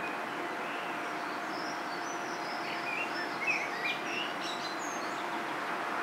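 Small birds chirping and twittering for a few seconds over a steady background rumble with a faint constant hum.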